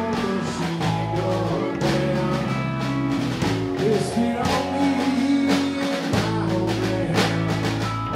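A live rock band playing, with electric guitar, electric bass and a drum kit; drum hits come at a steady beat under sustained guitar and bass notes.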